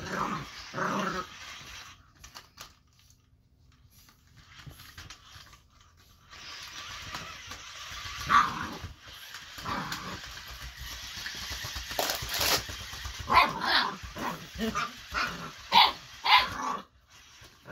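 Eight-week-old boxer puppy barking in short, high yaps: a few near the start, a quieter stretch, then a quick run of barks in the last few seconds.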